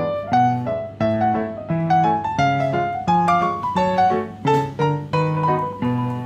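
Piano music: a melody of struck notes over low bass notes, several notes a second.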